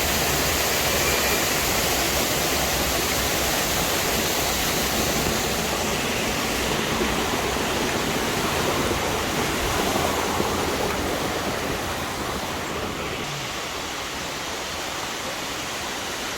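Steady rushing roar of a waterfall's falling water, a little softer in the last few seconds.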